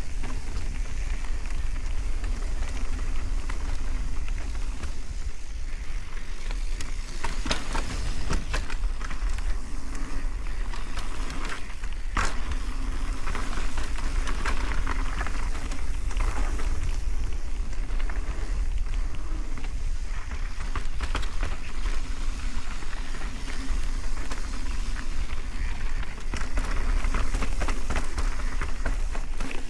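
Mountain bike riding fast down a dirt trail: a steady rumble of wind on the microphone and a hiss of tyres on the dirt, with a few sharp clatters as the bike hits roots or rocks.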